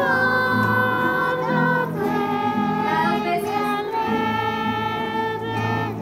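A group of children singing together in unison, holding long notes, over several strummed acoustic guitars.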